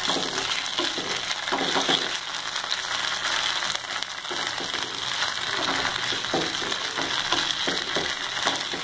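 Fried onions and ginger-garlic paste sizzling in hot oil in a non-stick frying pan, stirred with a spatula that scrapes across the pan in strokes now and then.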